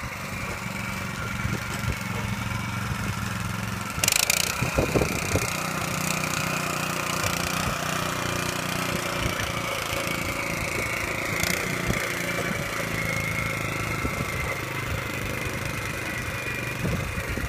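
Small engine of a mini garden tiller running steadily while its tines churn soil, with a sharp clatter about four seconds in and a brief one near the middle.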